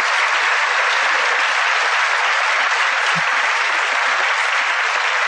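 Audience applauding steadily: many hands clapping together in a large hall.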